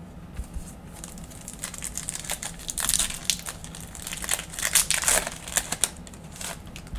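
The plastic wrapper of a trading-card pack crinkling and crackling as it is handled and opened by hand. The crinkling is light at first, grows dense about two seconds in, and is loudest in the middle.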